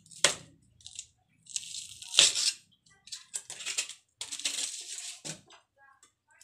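Sheet of aluminum foil crinkling and rustling in several bursts as hands move a fish about on it, with a sharp knock about two seconds in.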